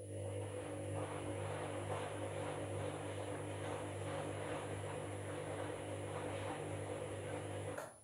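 Candy washing machine's motor turning the drum in a wash tumble: a steady motor hum with the wet duvet load swishing in the drum, stopping abruptly with a click near the end.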